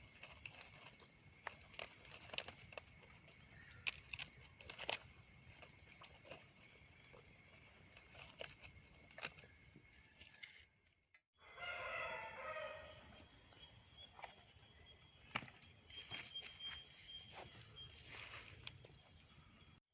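Rural ambience of insects, crickets chirring steadily in a high-pitched band, with scattered light clicks in the first half. After a sudden cut about halfway, the insects are louder and a chicken clucks briefly.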